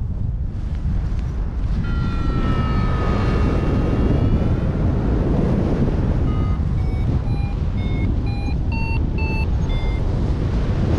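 Wind noise on the microphone of a paragliding pilot in flight, with a variometer sounding over it: a held tone that slides slightly down about two seconds in, then from about six seconds short beeps that step up in pitch and come faster, the variometer's signal of climbing in rising air.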